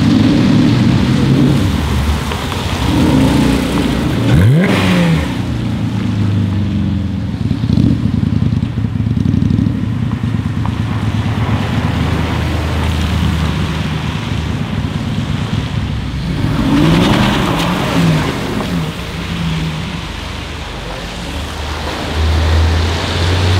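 Sports-car engines passing one after another on a wet street, among them a Porsche 991 GT3, a Mercedes SLS AMG and a Porsche 991 GT3 RS, with tyre hiss from the wet road. An engine revs sharply about four seconds in, and another revs with rising and falling pitch around seventeen seconds.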